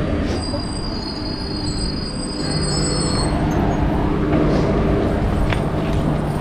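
Tamralipta Express passenger train braking to a halt at a platform. Its wheels and brakes squeal in high steady tones for about three seconds over the running rumble, then a steady low hum sets in as it comes to a stand.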